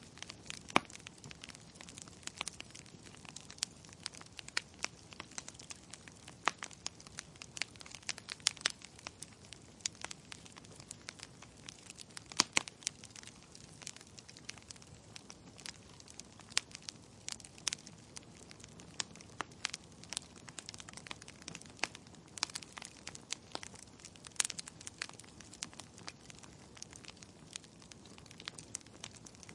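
Wood fire crackling in a fireplace: burning logs popping and snapping at irregular intervals, with a few louder snaps, over a soft steady hiss of the flames.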